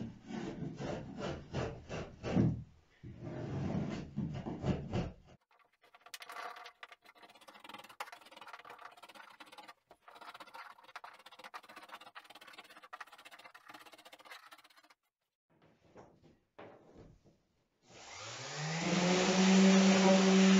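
Hand scraper drawn across the wood of a strip-planked hull in quick, short strokes, then more faintly and unevenly. Near the end an electric random orbital sander starts up, its motor rising in pitch and settling into a loud, steady hum.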